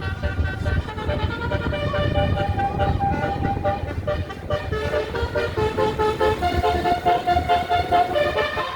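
Bus basuri musical air horn, the 'telolet' horn, playing a tune of held notes that step up and down, over a steady low rumble.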